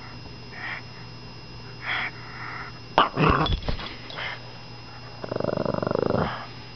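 Pug snorting and wheezing in short puffs, then a sudden loud, choppy burst about three seconds in, and a rough play growl lasting about a second near the end.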